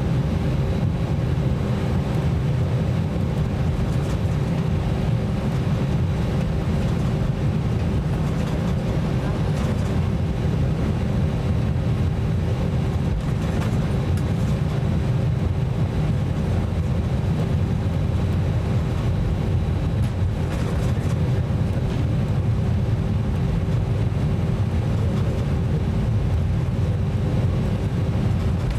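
Cabin noise of an Airbus A320-200 taxiing: a steady low rumble from the engines at taxi power and the wheels rolling, with a steady mid-pitched hum over it.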